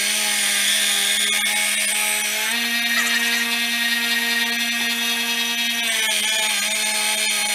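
1x30 belt sander running with a steady hum and a grinding hiss as a 440C stainless steel knife blade, held in a jig, is ground against the belt. About two and a half seconds in the motor's pitch rises slightly as the blade comes off the belt, and it drops back under load about three seconds later.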